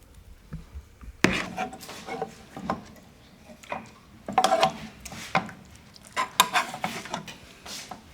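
Household clatter: a string of irregular sharp knocks and clinks, some with a short ring, starting about a second in.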